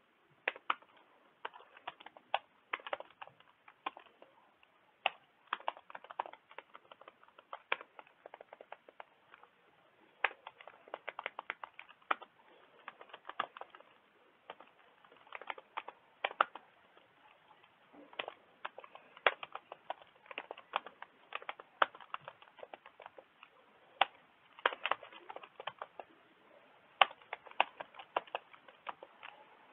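Typing on a computer keyboard: keys clicking in irregular runs with short pauses between them.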